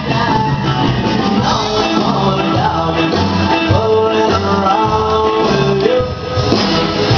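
Recorded song playing for the dancers: a singing voice over guitar and a steady bass beat.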